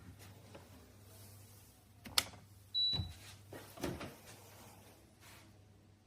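Scattered clicks and knocks of hard plastic parts being handled on a cold press slow juicer, with one short, high electronic beep a little under three seconds in.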